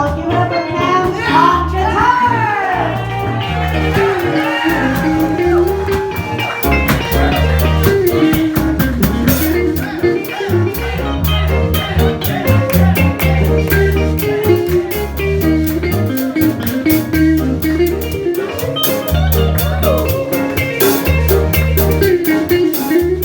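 Live band playing blues-style music, with a walking bass line, drums keeping time and a lead line that bends in pitch in the first few seconds.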